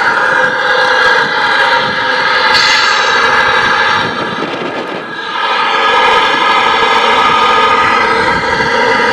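Tamiya Knight Hauler radio-controlled truck drives past pulling its trailer, the drive giving a steady high whine that dips briefly about halfway through.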